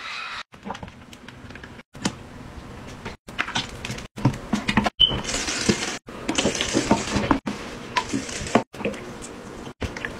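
Toilet-bowl cleaning in short cut-together clips: cleaning liquid and powder poured into the bowl water, and foam scrubbed around the bowl. Each clip stops abruptly. The loudest stretch is a hiss-like scrubbing noise a little past the middle.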